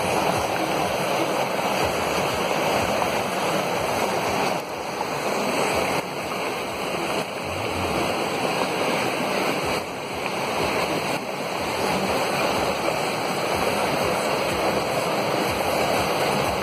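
Heavy rain and muddy floodwater rushing across a road, with runoff cascading down the hillside: a loud, steady rushing noise.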